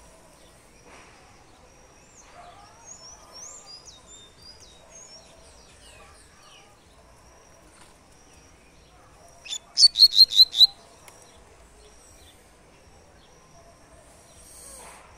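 Caged double-collared seedeater (coleiro) singing in the tui-tui song style. Soft, high twittering a few seconds in, then about two-thirds of the way through a loud phrase of about six quick, sharp, repeated whistled notes.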